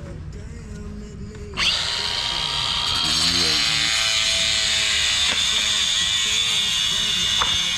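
A power saw comes in suddenly about a second and a half in and runs steadily with a high whine: a concrete saw cutting joints in a freshly stamped concrete sidewalk.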